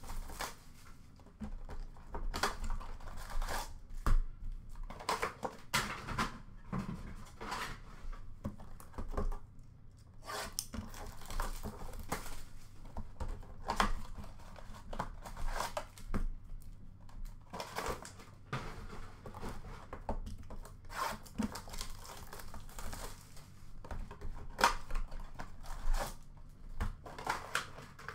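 Cardboard blaster boxes of hockey cards being torn open and the card packs pulled out, with irregular tearing, rustling and crinkling of cardboard and pack wrappers and a few sharp taps and knocks.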